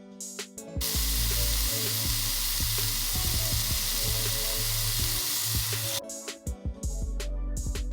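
Food sizzling loudly in hot cooking oil, starting about a second in and stopping abruptly about six seconds in, over background music with a steady beat.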